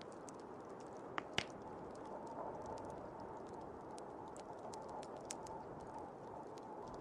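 Fire crackling with scattered sharp pops, two louder ones about a second and a half in, over the steady rushing of blizzard wind.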